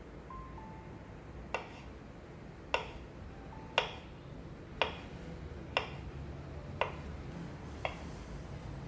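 Seven sharp taps, each with a short ring, coming evenly about once a second.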